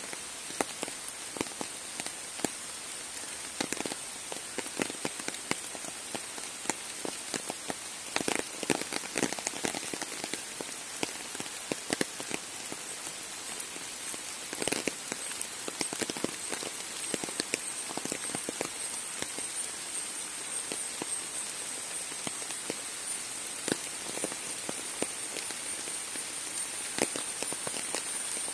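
Steady rain falling on trees and undergrowth, an even hiss with many scattered heavier drops ticking irregularly. A thin, steady high-pitched tone sits above the rain and grows stronger in the second half.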